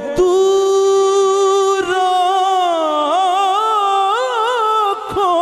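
Male singer's voice singing a Punjabi Sufi kalam. He holds one long, steady note for about three seconds, then decorates it with quick wavering runs, takes a short breath near the end, and starts a new note.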